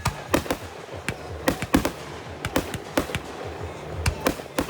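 Fireworks shells bursting in an irregular run of sharp bangs, about a dozen in under five seconds, with music playing underneath.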